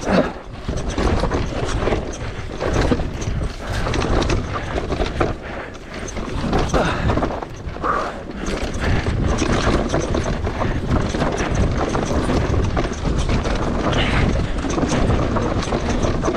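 Mountain bike ridden down a dirt trail: a continuous rush of tyres on dirt, with frequent short rattles and knocks as the bike runs over rocks and sticks.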